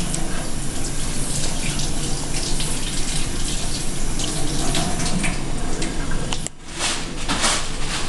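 A steady, fairly loud rushing noise, with a short drop-out about six and a half seconds in.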